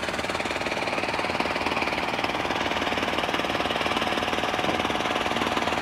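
An engine running steadily, with a fast, even knocking beat.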